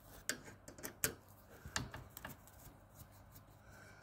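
Phillips screwdriver turning a screw out of the bracket on a recliner sofa's metal frame: faint, irregular clicks and scrapes of the tool working the screw.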